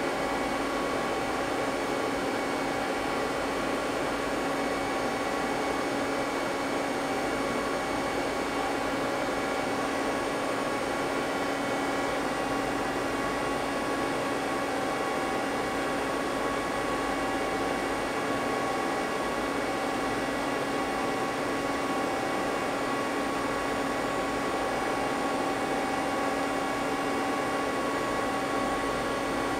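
Steady mechanical hum with several constant tones from a powered-up Mazak CNC lathe standing idle, not cutting.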